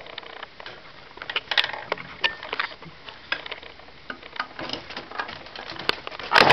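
Camera autofocus motor clicking and ticking irregularly, with a louder burst of noise near the end.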